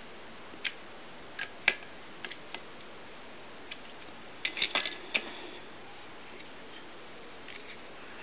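Sharp metallic clicks and taps of a folding hex key set working the set screws of an AR-15 two-piece quad rail handguard, as the screws are snugged down tight. Scattered single clicks come in the first few seconds, then a quick cluster about four and a half seconds in, and a few faint ticks near the end.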